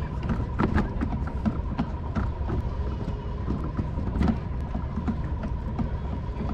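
A hooked fish being reeled in from a kayak: irregular light clicks and knocks from the rod, reel and hull over a steady low rumble, with a faint steady high tone throughout.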